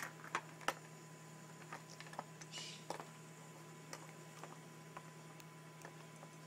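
Corgi nosing at a plastic Aikiou puzzle feeder: scattered light clicks and knocks of the plastic parts, a few sharper ones in the first second, then sparser. A short sniff comes about two and a half seconds in.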